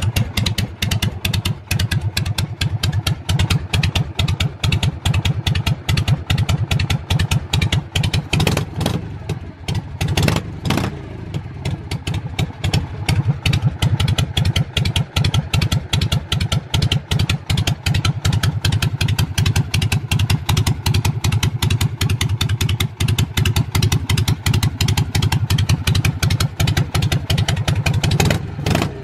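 Harley-Davidson Shovelhead 45-degree V-twin idling with a steady train of exhaust pulses. A couple of brief, sharper sounds break in about a third of the way through and again near the end.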